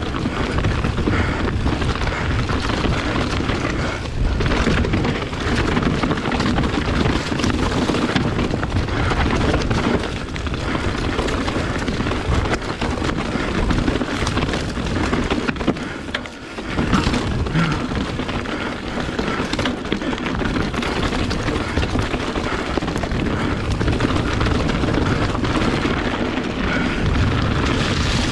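Riding noise of a Kona Process 153 mountain bike descending a dirt singletrack at speed: wind rumbling on the microphone over tyres rolling across dirt, leaves and rocks, with scattered knocks and rattles from the bike. It drops briefly about sixteen seconds in, then picks up again.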